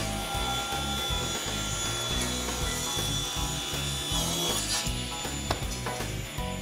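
Powermatic table saw ripping a thin strip off a board fed with a push stick: a steady high cutting noise that dies away a little past halfway. Soft background music plays underneath.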